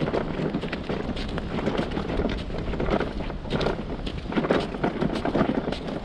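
Wind buffeting the microphone, with irregular crunching steps on sand and broken shell.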